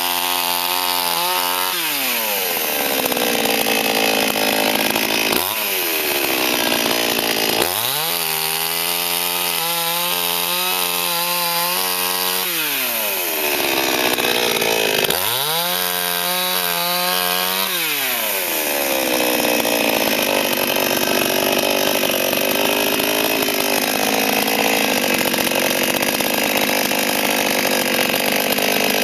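Forward FGS-5204 two-stroke petrol chainsaw running at high revs and cutting wood three times. Each time the chain bites, the engine pitch falls and the sound turns rough. It climbs back to a steady whine when the chain frees, and the last cut runs on to the end.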